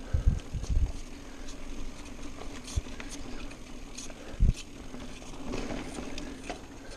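Mountain bike rolling fast down a dirt singletrack: a steady tyre-on-dirt rumble with light rattling clicks from the bike, and several dull thumps from bumps, a cluster in the first second and a strong one about four and a half seconds in.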